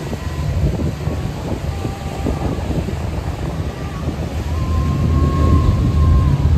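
Wind buffeting the microphone over the low rumble of motor yachts running at speed on open water, with a faint steady engine whine; it grows louder a little after the middle.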